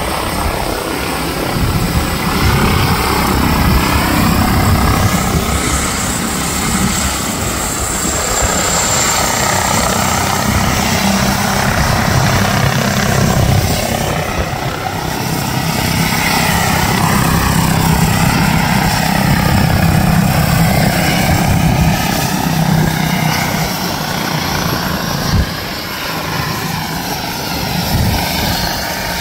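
Helicopter hovering close by, its rotor and engine running steadily.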